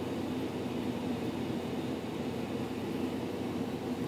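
Steady low background hum of room noise, with no distinct events; the clay being pressed by hand makes no sound that stands out.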